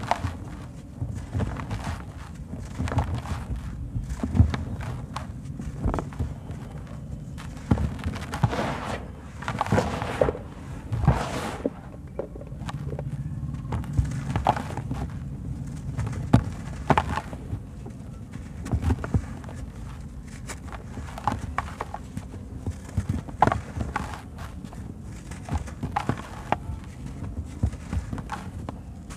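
Dry sand-cement lumps crunched and crumbled by hand, with powdery grit pouring into a basin: uneven crisp crunches and crackles, with longer pouring hisses around ten seconds in, over a low steady rumble.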